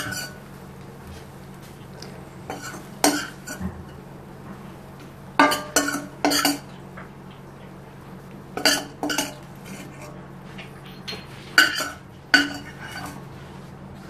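A metal spoon scraping and clinking against a stainless steel kadai as cooked okra is scooped out onto a plate, in five short bursts a few seconds apart.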